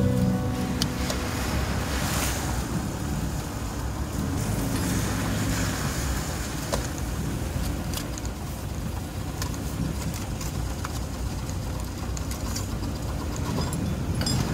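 Vehicle driving on rain-wet pavement: steady engine and road noise with the hiss of tyres on the wet surface.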